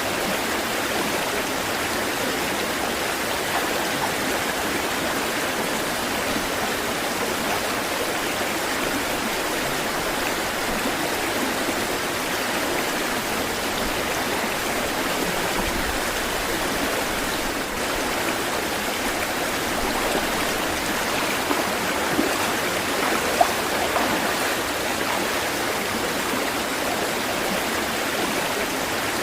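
Running water flowing steadily, an even rushing and babbling with no swells, with a few brief splashy ticks about three-quarters of the way through.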